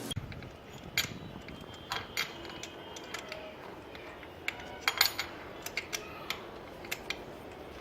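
Irregular light metallic clicks and clinks of hand tools working on a motorcycle's spark plug, a few of them ringing briefly.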